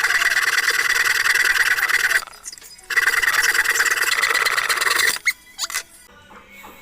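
Hand saw cutting through a 3/4-inch wooden plank: two long runs of rapid sawing strokes with a short pause between, stopping about five seconds in, followed by a couple of light knocks.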